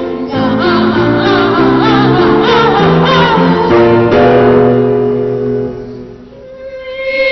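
Boys' choir singing a comic piece in imitation of cats, with piano accompaniment; the wavering sung lines ride over held piano chords. The sound dies away about six seconds in, and a new held note starts near the end.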